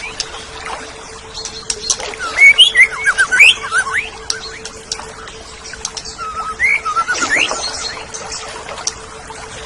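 Oriental magpie-robin (kacer) singing: bursts of quick, varied rising whistles and chirps, the loudest phrase about two to four seconds in and a shorter one around seven seconds. A faint steady hum runs beneath.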